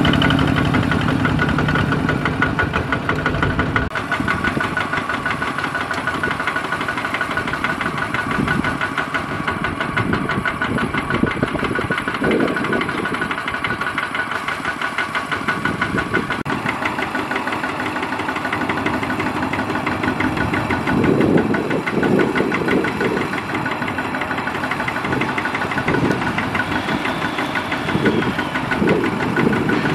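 Single-cylinder diesel engine of a two-wheel walking tractor running steadily with a rapid, even firing beat.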